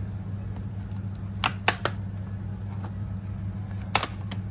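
A few sharp clicks of a laptop's plastic case and small parts being handled during disassembly: three in quick succession, then one more about two seconds later. A steady low hum runs underneath.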